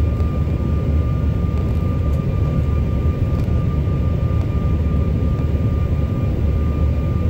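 Steady cabin noise of a passenger aircraft in flight, heard from inside the cabin: a dense low rumble of engines and airflow with a thin, steady whine above it.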